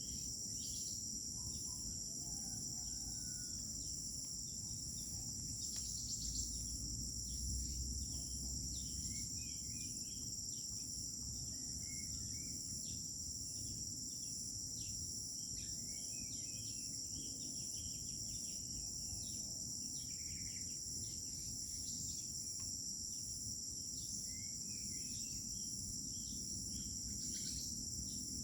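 Crickets chirping in a continuous high-pitched chorus, with scattered short bird chirps and calls over it and a low background rumble.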